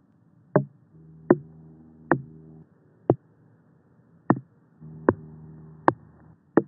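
Knocks on whole watermelons: eight single, sharp knocks about 0.8 s apart. The first ones are on a melon that rated near the top for texture in a tasting. The later ones are on melons from the bottom three, judged mushy and grainy.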